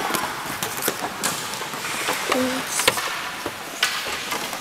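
Ice hockey play in a rink: a steady hiss of skates on ice, with a few sharp clacks of sticks and puck.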